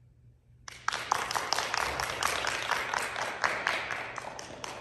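Applause from several people, starting suddenly under a second in and going on as a dense run of sharp claps.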